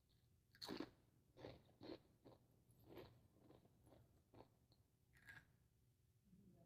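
Faint, irregular crunching of Takis rolled tortilla chips being chewed, about nine short crunches spread over a few seconds.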